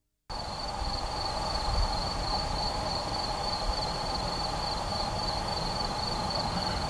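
Distant fireworks heard outdoors at night: a low rumble with a couple of dull swells, under a steady high-pitched trill and hiss that cuts in abruptly just after the start.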